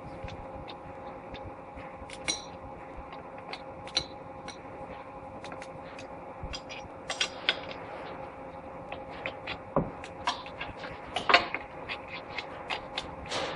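Irregular sharp metallic clicks and clinks, denser in the second half and loudest about 11 seconds in, over a steady hum.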